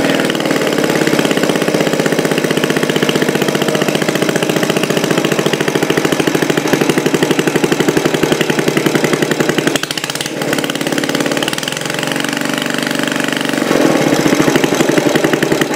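Single-cylinder flathead Briggs & Stratton engine running steadily on test, with its valve freed of a carbon chunk that had stuck it and cost it compression. Its speed sags briefly a little past halfway and picks up again near the end.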